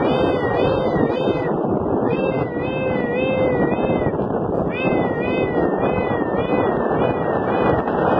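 A man's high falsetto voice imitating a police siren: a rapid wavering wail rising and falling about three times a second, with brief breaks. It sits over a steady rushing noise.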